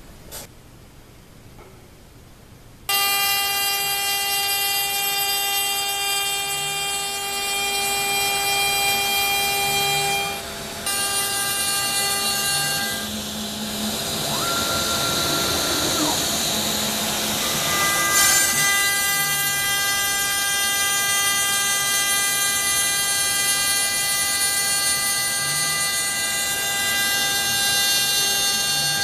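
CNC router spindle running with a steady whine made of several tones while the bit cuts through wood, starting about three seconds in. The mix of tones shifts a few times as the cut goes on.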